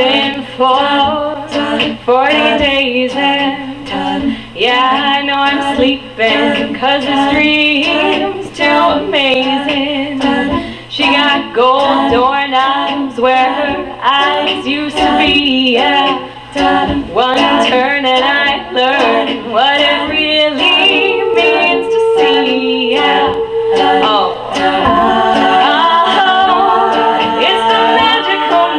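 Women's a cappella group singing, a lead voice over sung backing parts. About 21 seconds in, one voice holds a long steady note, and from about 25 seconds the backing voices hold chords.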